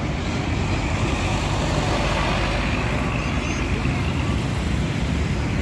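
Road traffic passing: a steady rumble of engines and tyre noise from buses and other vehicles on a toll road.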